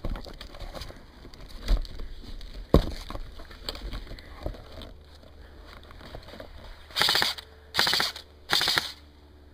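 M4-style airsoft rifle firing three short full-auto bursts in quick succession, each about half a second of rapid clatter. Two sharp knocks come earlier, about two and three seconds in.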